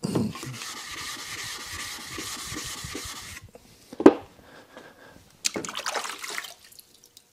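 A wet sharpening stone being flattened: a steady, gritty rubbing of stone on abrasive for about three seconds. Then a sharp knock as a stone is set down, and a few lighter clacks of the stones in their holders.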